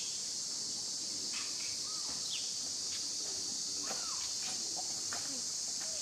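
Steady, high-pitched drone of insects, the loudest sound throughout, with scattered short chirps and squeaks over it and one brief rising-and-falling call about four seconds in.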